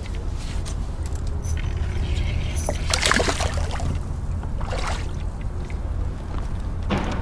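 Water splashing and swirling as a hooked crappie thrashes near the surface, in several bursts: the loudest about three seconds in, others near five seconds and near the end. A steady low rumble runs underneath.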